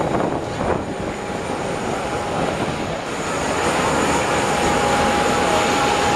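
Aircraft engine running: a steady rushing noise with a single steady whine on it, growing louder from about three and a half seconds in.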